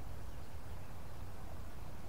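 Steady rushing of flowing river water, even and unbroken.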